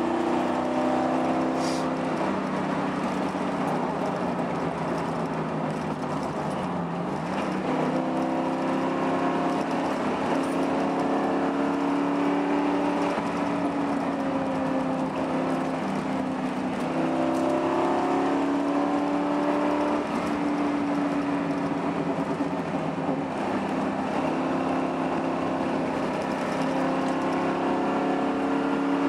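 Car engine and road noise heard from inside the cabin while driving, a steady drone whose pitch dips and climbs again about a quarter of the way in and rises again past the middle as the speed changes.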